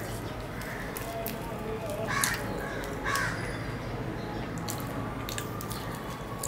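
Crows cawing in the background, a few harsh calls in the first half, strongest about two and three seconds in. Under them come soft clicks of luchi (puffed fried bread) being torn by hand and eaten.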